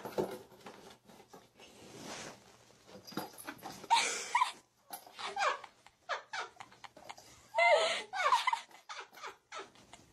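A cat giving several short, high, wavering cries from about four seconds in, amid scuffling and knocks as it grapples with a box.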